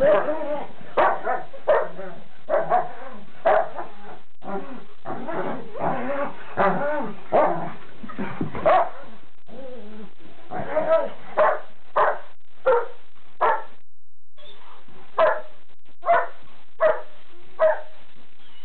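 A Weimaraner and a Rhodesian ridgeback puppy play-fighting, barking and yipping. The calls come thick and fast at first, then turn into single sharp barks about one a second from about halfway through.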